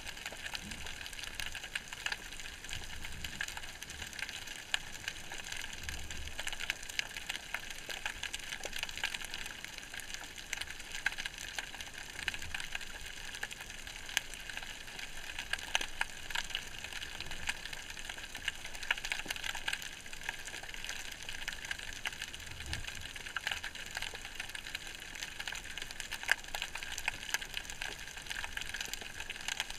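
Underwater ambience heard through a camera housing: a steady hiss with dense, faint crackling clicks and an occasional low thud.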